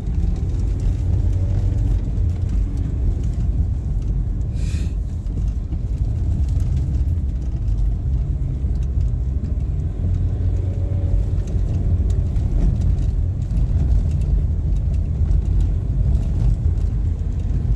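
Steady low rumble of a moving car's engine and tyres, heard from inside the cabin, with one brief hiss about five seconds in.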